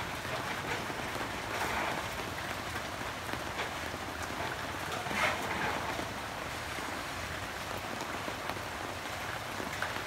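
Steady rain falling, an even hiss with scattered sharper ticks of individual drops.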